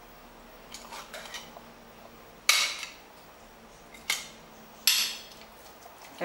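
Stainless steel potato ricer clanking as it is worked and emptied of squeezed cooked spinach: a few light clicks, then three sharp metal knocks, each with a short ring.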